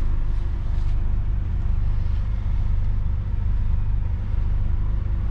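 The Scania Fencer F1 bus's engine idling: a steady low rumble heard from the driver's cab.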